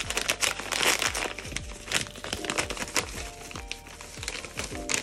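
Paper padded mailer envelope crinkling as it is peeled open and a hand rummages inside. The crinkling is loudest in the first second and comes in irregular bursts. Background music with a steady beat plays underneath.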